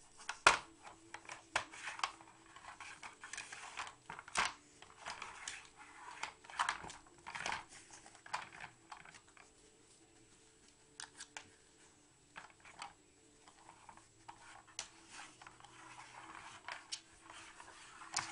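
A dog nosing and pawing at a layered plastic puzzle feeder: irregular plastic clicks, knocks and scrapes as the tiers are pushed round and the pegs rattle, the loudest knock about half a second in and a quieter stretch midway.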